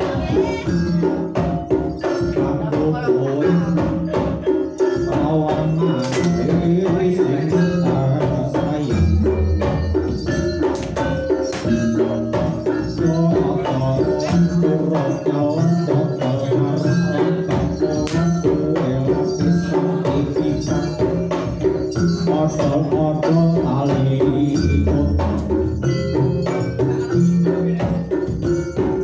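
Live East Javanese jaranan gamelan music: dense, fast drumming and jingling percussion over tuned metallic tones, with deep low tones swelling in now and then.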